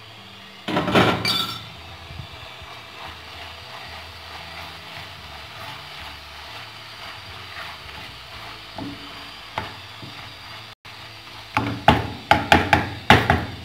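Cooking pot handled: a glass pot lid clatters about a second in, then a wooden spoon stirs the soft onions and raisins in the pot. Near the end comes a quick run of sharp knocks, the spoon striking the pot.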